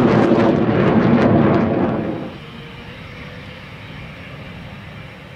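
Military jet flying past with a loud, crackling roar that cuts off abruptly about two seconds in, leaving a much quieter steady rumble with a faint whine.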